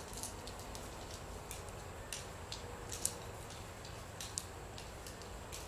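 Nunchaku being spun and caught: a few faint, sharp ticks as the sticks tap against the hand, the clearest about three seconds in, over a low steady room hiss.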